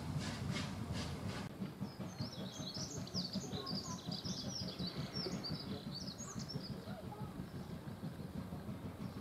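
ČSD class 555.0 (ex-German class 52) steam locomotive 555.0153 working, its exhaust chuffing about three times a second, stopping abruptly about a second and a half in. Then birds chirping over a steady low rumble.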